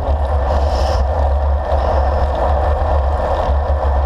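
Steady wind rushing over the microphone of a handlebar-mounted action camera on a moving road bike, a loud rumble with no breaks.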